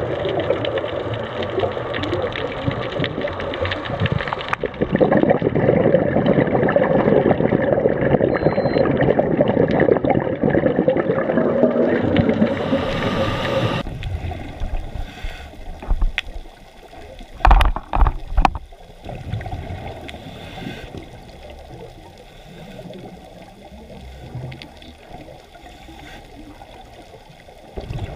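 Underwater recording of gurgling scuba exhaust bubbles and water rush, dense and steady for the first half. Then a sudden drop to a quieter wash with a few short loud bubble bursts about two-thirds through.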